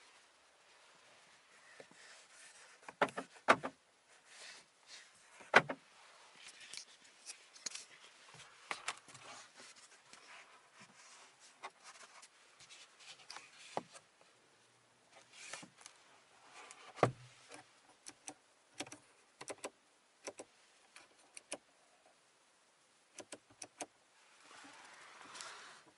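Scattered clicks and knocks inside a car cabin, with a few louder thumps about three and five and a half seconds in and again at seventeen seconds. Near the end a soft hiss swells and fades.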